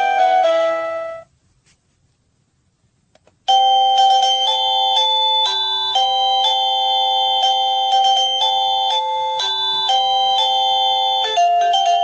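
Sadotech Model C wireless doorbell chime playing its electronic melody tones. One tune cuts off about a second in. After a short silence with faint clicks, another chime melody starts and plays on, changing to a different tune near the end.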